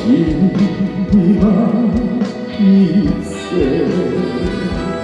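Male trot singer singing live over band accompaniment with a steady drum beat, holding a long note with a wide vibrato early in the phrase.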